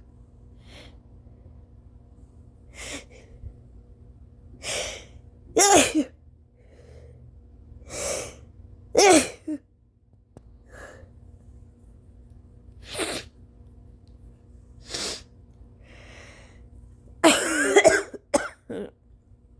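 A woman coughing and sneezing in a string of short, separate bursts with pauses between them. The loudest come about six and nine seconds in, and a longer, louder fit comes near the end.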